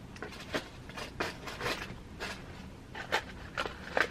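Hands rummaging through small objects: a string of short, irregular clicks and rustles.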